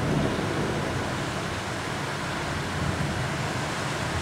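Steady rush of heavy thunderstorm rain, with a low swell right at the start.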